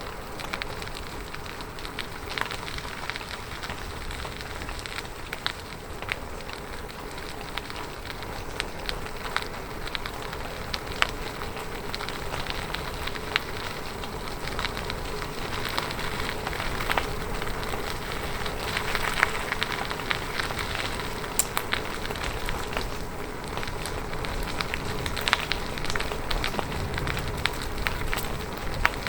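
Bicycle riding: tyres rolling over the road with a steady crackling noise, a faint steady hum and many scattered small clicks and ticks.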